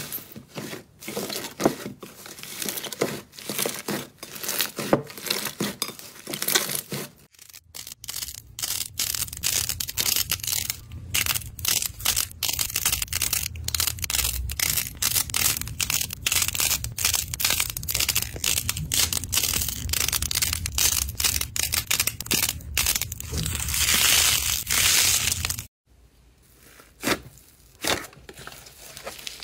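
Slime being crushed and squeezed by hand, giving dense crackling and crunching. The sound changes abruptly about seven seconds in and again near the end as new clips begin, with a low hum under the middle stretch.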